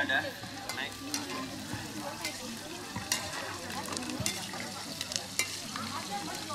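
Food frying and sizzling in a wok on a portable gas stove while a metal spatula stirs it, with sharp clinks of the spatula against the pan now and then.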